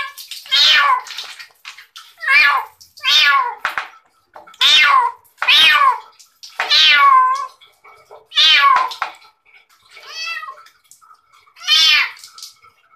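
Young kitten meowing loudly and repeatedly while being bathed, about nine drawn-out, high-pitched cries at roughly one a second.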